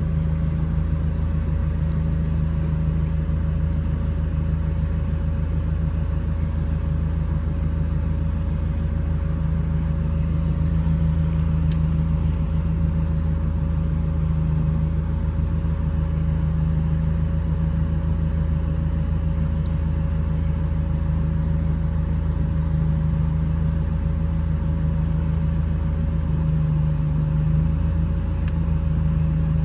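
Ford Focus engine idling steadily, a constant low hum with a faint steady tone above it, and now and then a faint click.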